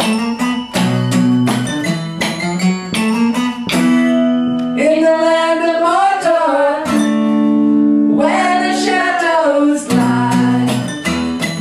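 Live acoustic guitar strumming chords with singing. About four seconds in the strumming stops and a voice holds long wavering notes over a ringing chord, then the strumming starts again near the end.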